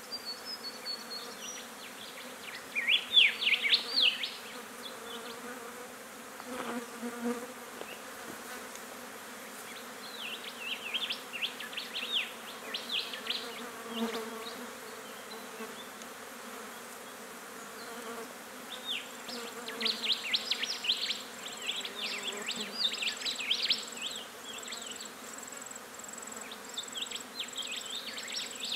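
Flies buzzing steadily around a roadkill carcass, with repeated bouts of high, rapid chirping; the chirping bouts are the loudest sounds.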